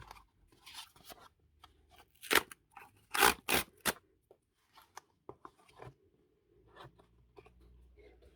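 A cardboard subscription box being opened by hand: its tape is cut or torn and the card flaps and packing rustle. A cluster of sharp, loud rips comes about two to four seconds in.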